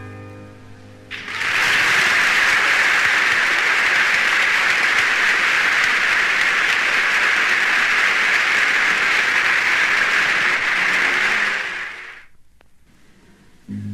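Concert audience applauding after a song ends. The applause breaks in about a second in, holds steady for roughly ten seconds, then dies away near the end.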